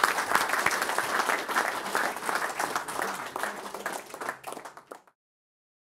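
Audience applauding, a dense patter of many hands clapping that thins out and cuts off suddenly about five seconds in.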